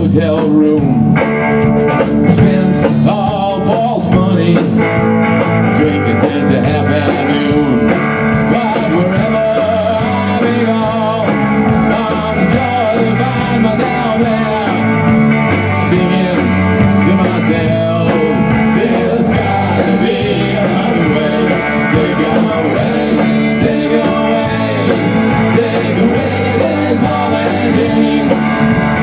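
A rock band playing live: single-cut electric guitar, electric bass and a Tama drum kit, loud and steady throughout.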